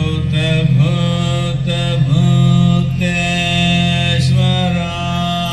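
Devotional chanting: a voice holds long notes over a steady low drone, moving from note to note about once a second.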